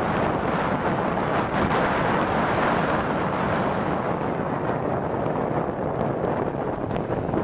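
Steady rushing wind, with slight swells in strength.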